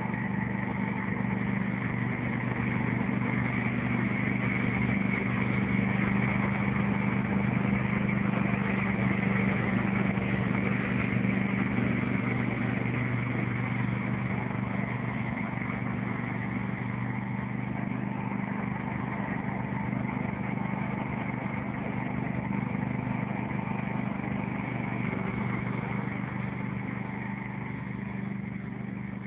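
Riding lawnmower engine running steadily as the mower drives, a constant low hum that swells slightly and then slowly fades toward the end.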